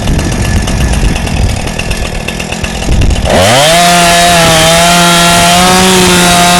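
Two-stroke chainsaw idling roughly, then its throttle trigger is squeezed about three seconds in. The engine revs up quickly to a high, steady pitch and holds there at full speed, climbing a little higher near the end.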